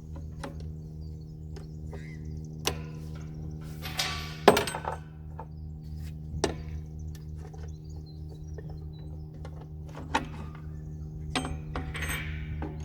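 Scattered sharp clanks and knocks, the loudest about four and a half seconds in, with two short bouts of scraping, from tools and parts being handled while an LPG system is stripped from a car, over a steady low hum.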